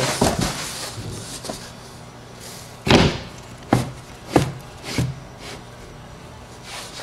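Knocks and thumps of a 13-inch subwoofer being set into an MDF mounting plate in a cardboard box: four knocks between about three and five seconds in, the first the loudest.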